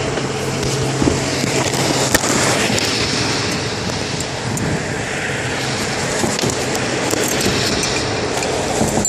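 Highway traffic passing close by: a steady, loud rush of tyre and engine noise, with a low engine hum under it for the first couple of seconds.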